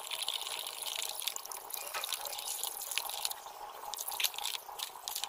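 A hand stirring a thick liquid paint mixture in a plastic bucket: wet stirring and slopping sounds with small clicks.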